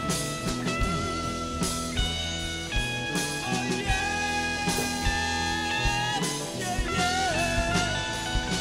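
Background rock music with guitar and drums, guitar notes held and bent.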